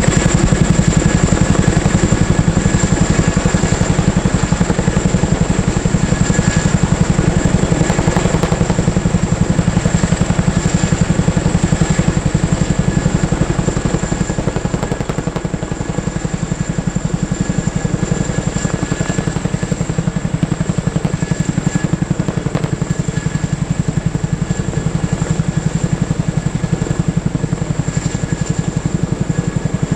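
Military helicopter running with a steady rapid rotor chop and a high turbine whine, easing slightly in loudness about halfway through.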